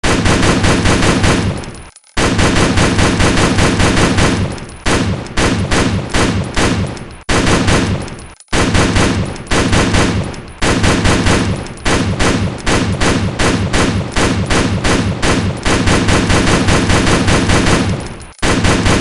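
AR-style rifle sound effect firing in rapid semi-automatic strings: long runs of quick shots broken by a few short pauses, with stretches where the shots come a few tenths of a second apart.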